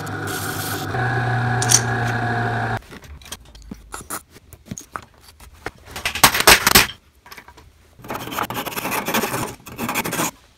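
An electric disc sander runs with a workpiece pressed against it, then cuts off about three seconds in. Taps of a soft-faced mallet driving wooden dowels into a frame joint follow. Near the end come quick rasping strokes of a hand saw cutting a dowel off flush.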